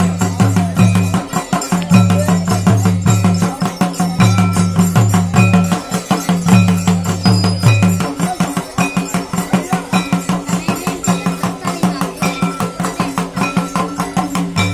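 Loud folk dance music with fast, dense percussion over a repeating deep bass line.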